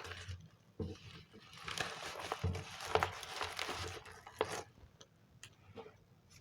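Plastic packaging crinkling and rustling as it is handled, with scattered clicks and taps. It is busiest in the middle and thins out near the end.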